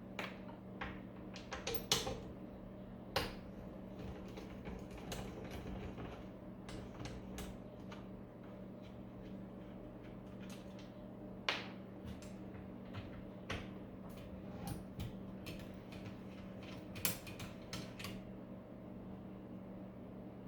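A 5/16 wrench working the transformer's mounting bolts loose inside a battery charger's steel case: scattered metal clicks and clinks, with the loudest knocks about 2, 3, 11 and 17 seconds in. A steady low hum runs underneath.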